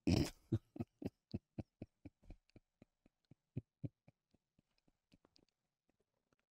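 A man laughing: a string of short, breathy bursts, about four a second, that fade out over about four seconds.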